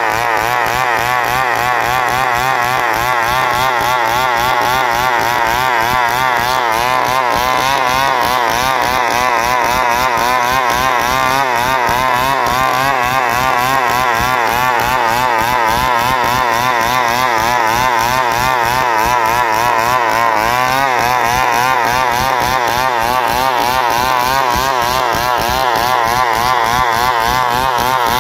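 Chainsaw engine running at high speed without a break, its pitch wavering quickly up and down as it works through wood.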